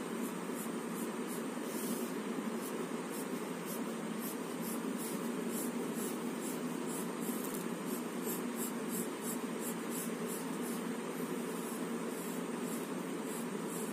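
Pencil scratching on paper as lines are drawn, in many short repeated strokes, over a steady low background hum.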